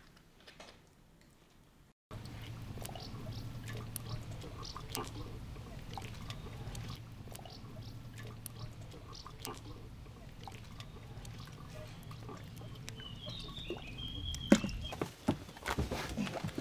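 Near silence for about two seconds, then outdoor ambience beside a swimming pool: a steady low hum with light water lapping and small scattered clicks. Near the end comes a short high chirping, followed by a loud knock and several thumps.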